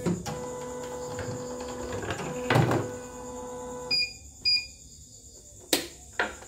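CNY portable computerized embroidery machine's motor humming steadily, with a knock about two and a half seconds in, stopping about four seconds in. Two short high beeps from its touch-screen buttons follow, then a sharp click near the end.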